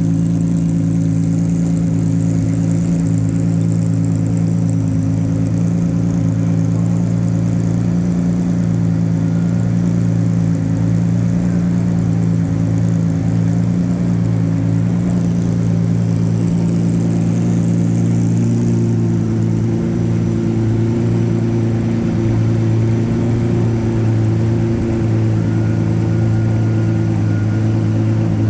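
Ferrari P4 race car's engine idling steadily while the car is slowly maneuvered at walking pace.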